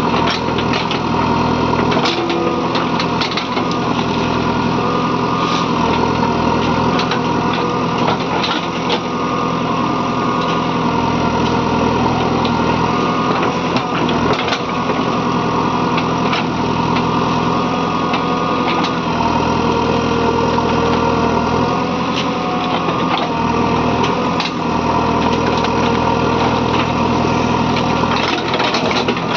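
JCB 3DX backhoe loader's diesel engine running steadily as the machine works, with frequent short, sharp knocks throughout.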